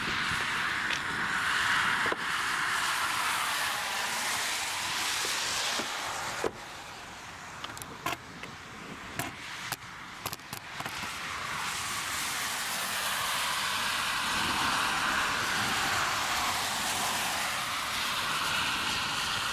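Cars passing on a wet road, their tyre hiss swelling and fading. One car goes by in the first six seconds, a few sharp clicks follow, and another car's hiss builds up from about eleven seconds in.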